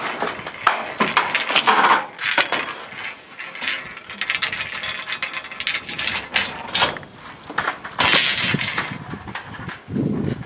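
Irregular metallic clicks, clinks and knocks of hand tools and metal fittings being worked.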